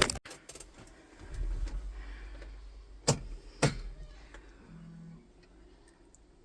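Two sharp metallic clinks about half a second apart, over a low handling rumble, with a single click at the very start.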